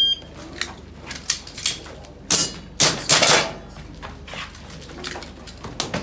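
Airsoft pistol firing a string of sharp pops at uneven spacing during an Action Air practical shooting stage, the loudest shots coming close together around the middle, with fainter ones near the end.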